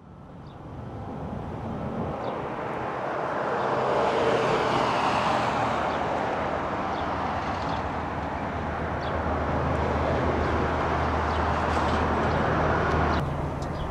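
Road traffic noise: a steady rush of passing cars with low engine hum. It fades in over the first few seconds and drops off abruptly near the end.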